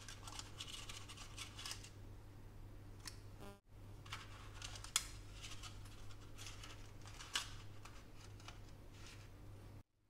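A metal spoon scraping and dropping thick cake batter into paper-lined foil cups, in soft scratchy rustles with two sharp clicks in the middle.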